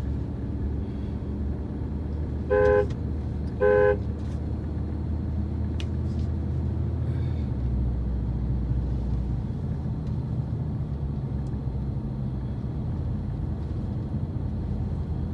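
Car horn tooted twice, two short beeps about a second apart, heard from inside the car's cabin over a steady low rumble of road and engine noise.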